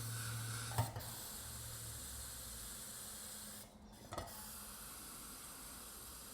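Air hissing out of a bicycle inner tube's valve as the tube is deflated, cutting out briefly a little under four seconds in, with a couple of small clicks.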